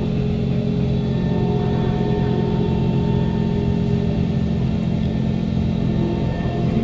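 Kawasaki Heavy Industries C151 train running at steady speed, heard inside the passenger car: its GTO-VVVF traction motors give a steady hum of several tones over the rumble of the wheels on the track.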